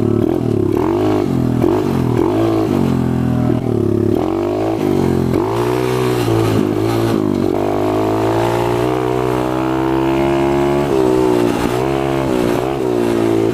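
Four-stroke pit bike engine revving up and down again and again under throttle, with a steadier stretch past the middle.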